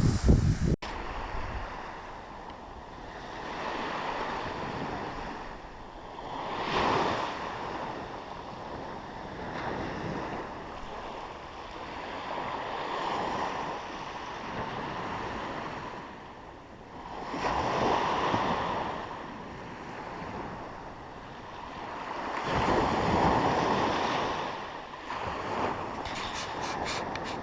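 Sea waves breaking and washing up the beach, swelling and fading every few seconds, with wind buffeting the microphone.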